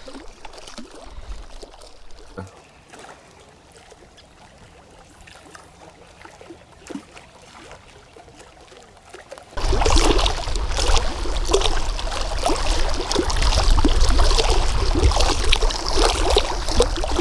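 Outdoor noise by open water: faint water sounds and a few small knocks at first. About ten seconds in, a loud steady rush of wind on the microphone and splashing water starts abruptly.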